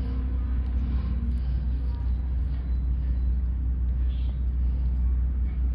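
Steady low rumbling hum in the background, unchanging through the whole stretch, with faint higher sounds scattered above it.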